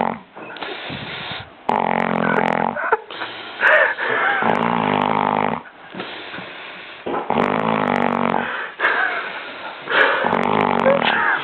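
People snoring in deep sleep, a long, low snore about every three seconds with breathy breaths in between.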